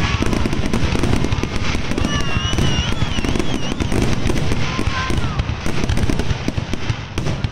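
Fireworks finale: a dense, rapid barrage of bangs and crackles with no let-up. A few high, wavering whistles sound about two to three and a half seconds in.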